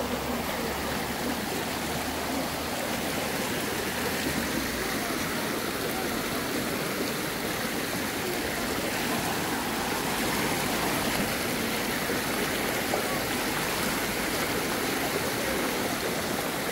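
Shallow rocky river rushing and splashing over stones in a steady, unbroken flow.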